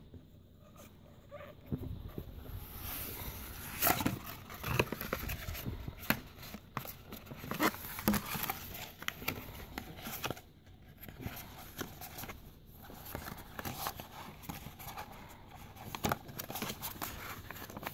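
A rolled paper poster being handled and unrolled: stiff paper rustling and crackling in irregular handling noises, with scattered sharp clicks.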